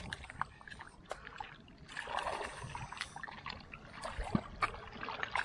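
A short, blunt knife clicking and scraping against a Pacific oyster's shell as the oyster is prised open by hand.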